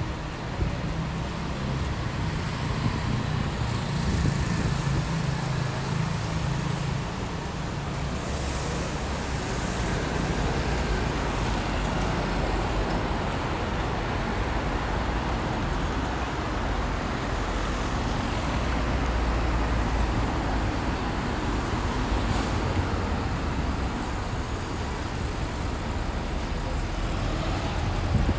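Street traffic: a steady mix of passing engines and tyre noise, with a lower engine drone through roughly the first third.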